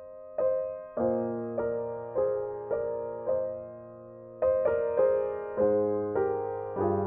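Solo piano music: soft notes struck about every half second, each ringing and fading, with a brief pause about four seconds in before a fuller chord.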